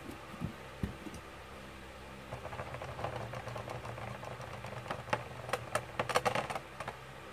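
A metal-rimmed Infinity Nado spinning top running down on a plastic stadium floor at the end of its spin: a steady low hum, turning into a growing rattle from about two seconds in, with a flurry of sharp clicks around five to six seconds as it wobbles.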